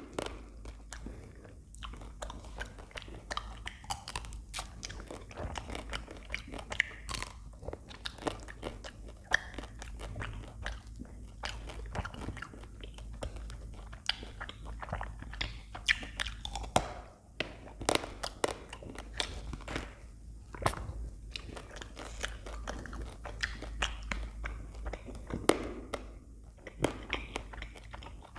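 Close-miked biting and chewing of a chocolate-coated ice cream bar, the chocolate shell crunching in many short, irregular cracks.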